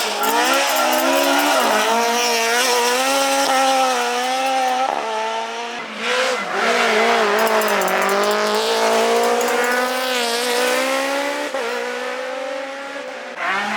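Rally car engine running at high revs under hard driving, its pitch wavering, dipping briefly several times, then rising steadily through a long pull.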